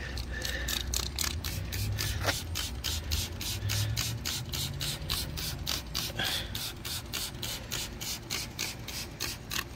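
Plastic trigger spray bottle pumped over and over, about four quick squirts a second, misting diluted aluminium coil cleaner onto an A/C condenser coil.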